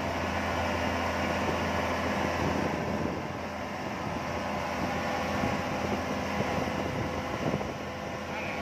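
Speedboat engine droning steadily while the boat runs fast, over the rush of water and wind.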